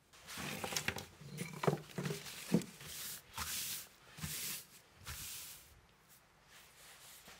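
Crumpled paper rustling and crinkling as hands spread and smooth it flat, in a string of irregular short bursts with a few soft knocks, dying down near the end.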